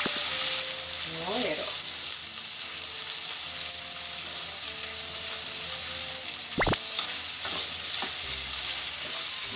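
Diced bacon sizzling as it fries in a stainless frying pan, stirred with chopsticks. A single sharp knock comes near the seven-second mark.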